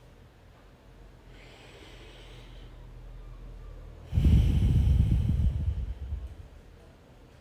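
A person breathing deeply while holding a yoga pose: a soft inhale about a second in, then a louder exhale about four seconds in that lasts about two seconds, with a low rumble.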